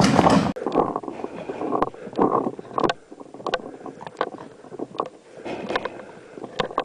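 Loud noise that cuts off sharply about half a second in, followed by rustling in undergrowth with scattered sharp clicks and knocks from a paintball player moving through the brush.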